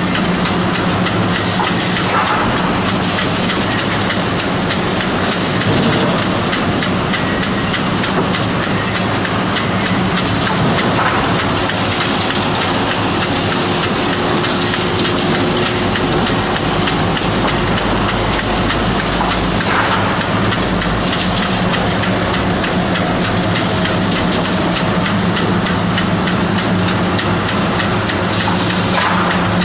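Industrial wood-processing machinery running steadily: a constant mechanical noise over a low, even hum, with a deeper rumble joining for a few seconds past the middle.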